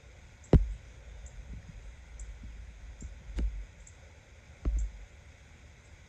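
Short, high bird chip notes repeating about once a second, over three loud, dull knocks on the microphone: about half a second in (the loudest), then near three and a half and near five seconds.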